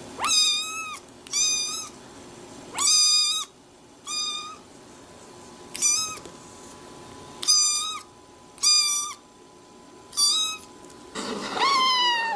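A cat meowing over and over: about nine short, high, even-pitched meows, roughly a second or so apart, then a longer meow near the end that falls in pitch.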